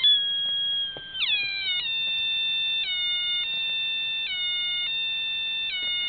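A homemade transistor siren circuit, two astable multivibrators driving a small loudspeaker, sounds an electronic tone while its potentiometer is turned. The tone slides down about a second in, then switches back and forth between a higher and a lower pitch about every second, each switch a short glide, like a two-tone horn.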